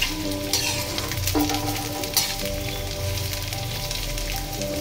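Vegetables sizzling in hot oil in a metal kadhai while a slotted metal spatula stirs them, with a few sharp scrapes and knocks of the spatula against the pan.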